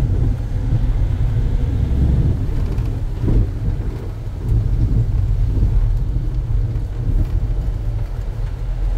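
In-cabin road noise of a 2020 Nissan NV350 diesel van on the move: a steady low rumble of engine and tyres on a wet road.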